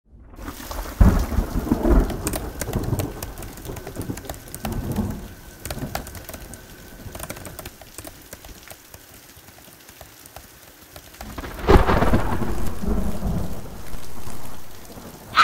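Steady rain with thunder: a loud rumble about a second in, and a second loud one around twelve seconds in that rolls on for a couple of seconds.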